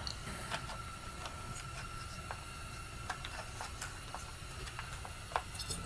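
Scattered faint clicks and light taps of hand tools and parts as the carburetor is worked off a chainsaw, over a faint steady hum.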